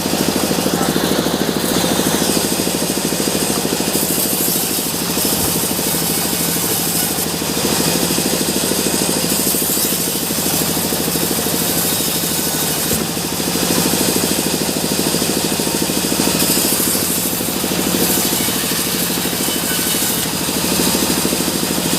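Sawmill machinery running steadily: an even, engine-like drone with a fast vibrating rhythm and hiss, with no clear cut starting or stopping.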